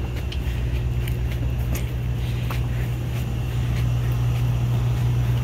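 A steady low mechanical drone, growing slightly louder near the end, with faint irregular clicks of footsteps on the path.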